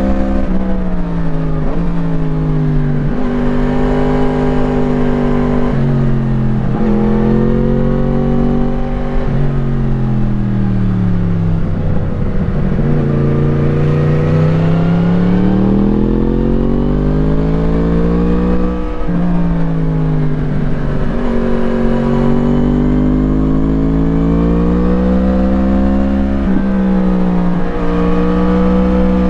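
2017 Yamaha MT-10's crossplane inline-four through an Akrapovič slip-on exhaust, heard from on board: the revs climb and drop sharply at a series of upshifts, fall away for a long slowdown about twelve seconds in, then pull up through the gears again.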